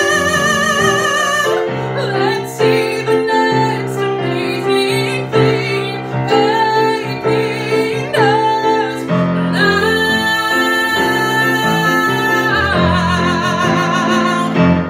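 A solo singer with piano accompaniment sings the end of a show tune. A phrase over piano chords leads into a long final note with vibrato that steps up to a higher held note near the end. The note is held until the music stops.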